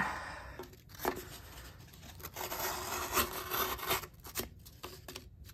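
Small fixed-blade knife slicing through corrugated cardboard: a dry rasping scrape with a few sharp clicks, beginning about a second in after a tap of cardboard being set down.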